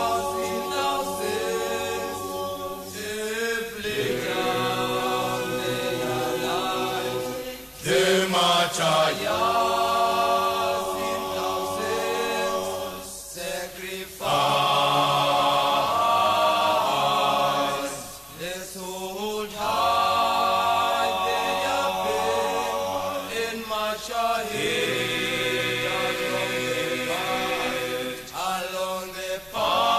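A group of voices singing a cappella in Xhosa, in long held chords of a hymn-like chant. The phrases break off briefly every few seconds before the voices come in again together.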